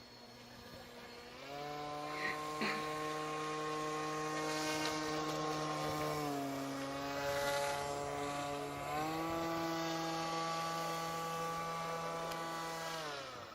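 RC airboat's motor and air propeller running at a steady pitch, throttled up about 1.5 s in, eased back about 6 s in, throttled up again about 9 s in, then cut off just before the end.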